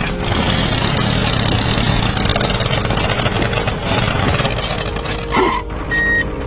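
Construction-vehicle engine running steadily. Near the end come two short, high beeps.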